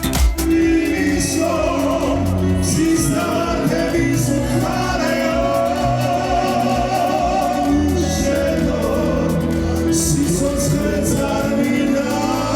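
Music with singing: a slow song with voices holding long, wavering notes over a steady bass.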